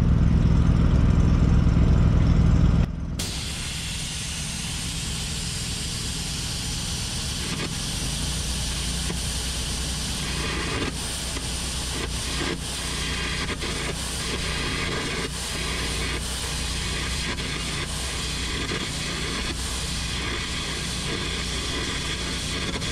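A loud steady low hum cuts off about three seconds in. A Profax carbon-arc gouging torch then runs: a steady hissing rush of compressed air with crackling from the arc as it gouges out the weld between a trailer axle housing and its spring perch.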